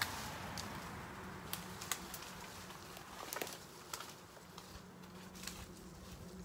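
Scattered snaps and crackles of dry twigs as a dead branch is pulled out through brush and over dry leaves, the cracks coming irregularly a few at a time.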